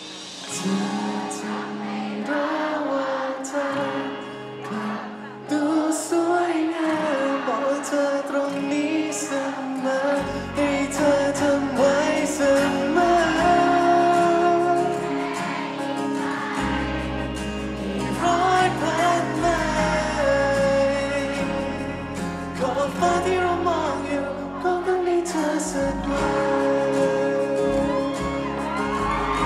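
A male singer singing a song live into a handheld microphone with instrumental accompaniment; a bass line comes in about ten seconds in.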